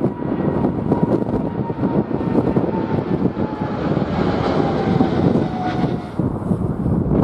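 Jet airliner passing, its engine whine slowly falling in pitch and fading out about six seconds in, along with a rising and falling hiss. Heavy wind buffeting on the microphone rumbles loudly underneath throughout.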